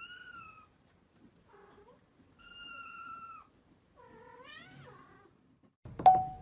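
A kitten meowing three times, with soft high drawn-out calls, the last one bending up and down in pitch. Near the end a much louder plucked musical note cuts in.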